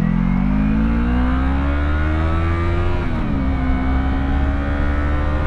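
Yamaha YZF-R3's 321 cc parallel-twin engine pulling under acceleration, its pitch rising for about three seconds, then dropping sharply with an upshift and holding steady at cruising revs.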